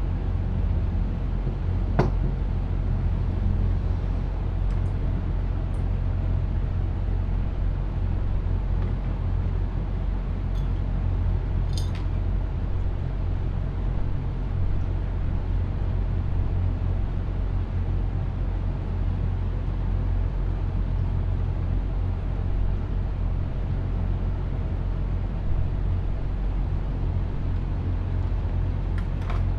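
Steady low machine hum with a few faint clicks, like small metal parts set down on a table.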